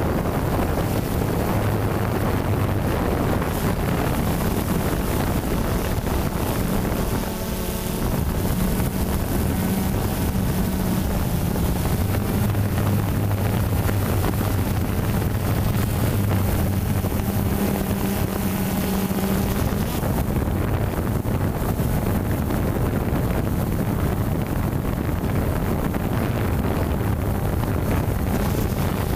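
Quadcopter drone's motors and propellers humming steadily, picked up by the drone's own onboard camera, with wind noise on the microphone. The low hum's pitch shifts a little now and then as the drone manoeuvres.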